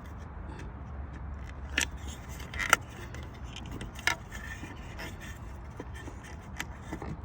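Hands working with tools and horn wiring: a few scattered sharp metallic clicks and clinks, the sharpest about two and a half seconds in, over a steady low hum.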